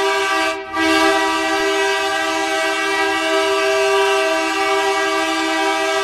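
Hockey goal horn sounding one long, steady multi-note chord like a train horn, breaking off briefly about half a second in and then sounding again.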